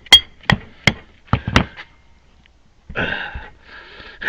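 Hammer blows on steel, tapping at the tight gland of a Case 580 backhoe's outrigger hydraulic cylinder to break it loose. There are five quick sharp strikes in the first second and a half, and two short rasping noises near the end.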